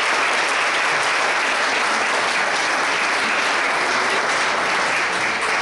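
Audience applauding, a steady continuous clapping from a roomful of people.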